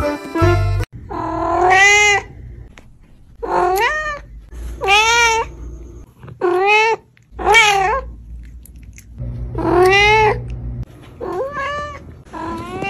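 A cat meowing repeatedly: about eight drawn-out meows, each rising and then falling in pitch, spaced a second or so apart.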